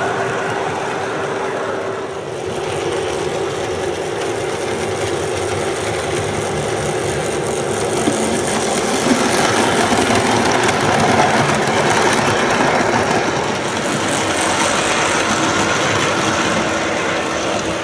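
Model trains running on a layout: a steady rolling rumble of wheels on track and motors, a little louder in the middle as cars pass close by.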